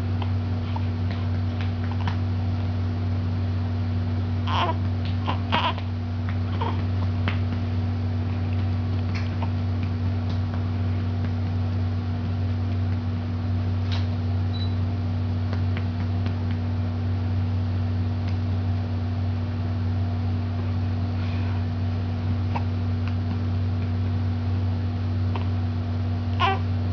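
A baby making a few short, small vocal sounds while being burped: a cluster about five seconds in and one near the end, over a steady low hum.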